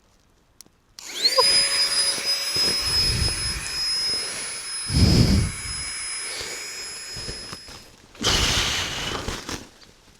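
Small electric air pump spinning up with a rising whine about a second in, then running steadily as it inflates a sleeping mat. It cuts out near the end, followed by a brief rush of noise.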